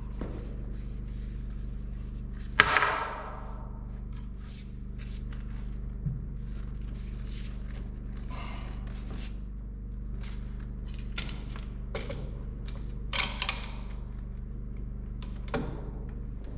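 Scattered knocks, thuds and clicks of handling tools and parts, with a sharp knock about two and a half seconds in and a cluster of louder clicks near the end, over a steady low hum.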